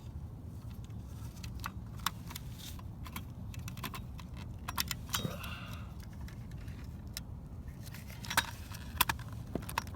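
Small metal parts clicking and rattling as a door-lock key cylinder and its retaining pin are worked back into a car door handle. The clicks are irregular, with two sharper ones near the end, over a steady low hum.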